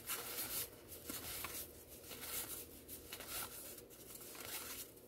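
Baseball cards being slid off a stack and flipped one after another, with a soft papery rub about every second.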